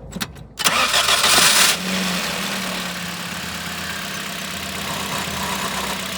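Toyota Yaris engine cranked by the starter, catching after about a second and settling into a steady idle. It now runs properly, with the engine computer repaired after a misfire on cylinder 1.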